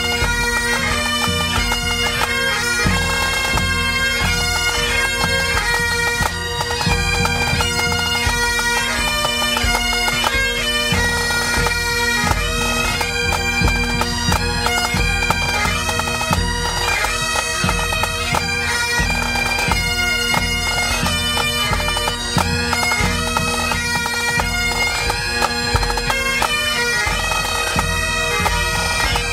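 Pipe band playing: Great Highland bagpipes with their steady drones sounding under the chanter melody, backed by bass drum and side drums beating time.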